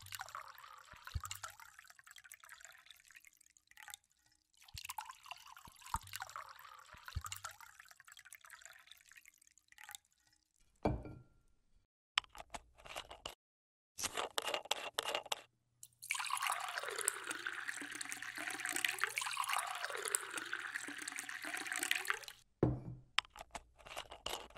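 Liquor poured from a bottle into glass tumblers in several separate pours, with a longer splashing pour filling a glass for about six seconds near the end.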